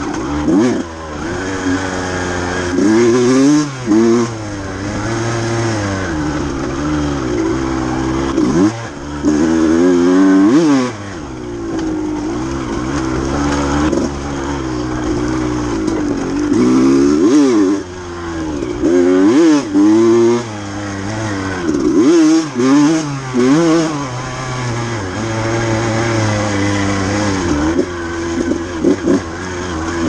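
KTM dirt bike engine being ridden hard, revving up and dropping back again and again as the throttle is opened and shut through the gears.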